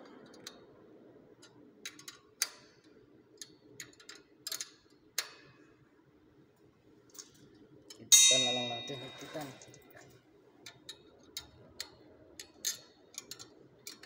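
Small metallic clicks and taps of hand tools working the tamper switch on a fire-sprinkler gate valve. About eight seconds in there is one loud metal clang that rings and fades over about a second.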